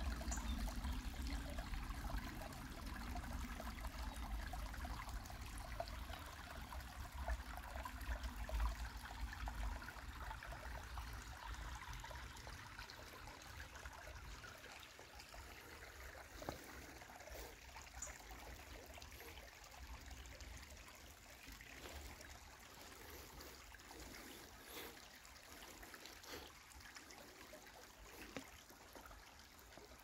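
Shallow creek trickling and babbling over rocks, fuller in the first half and fading as it moves off. Scattered light steps on stones come in the second half.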